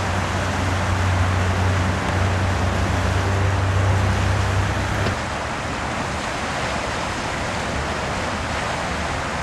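Steady rushing noise of river water and city traffic. A low steady hum sits under it and cuts off about five seconds in.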